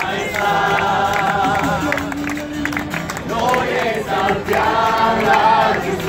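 A group of voices singing a Christian worship song together, accompanied by an acoustic guitar.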